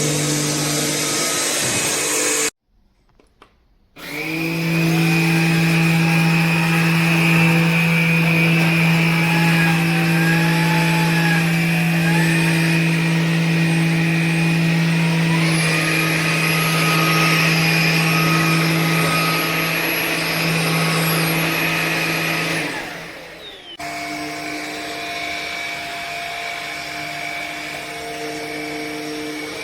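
Tineco A30S cordless stick vacuum running with a steady motor hum and high whine. It cuts out briefly about two and a half seconds in, runs louder for most of the stretch, then drops to a quieter steady run near the end.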